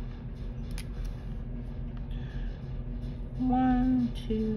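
Soft background music with a few held notes changing pitch in the last second or so, and faint light clicks of a pen being picked up.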